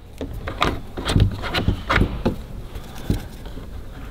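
Irregular sharp clicks and knocks of hard plastic being worked loose: the black plastic trim plate around the sliding-door pin of a VW T4 van being pried off. The loudest knocks come a little over a second in and about two seconds in.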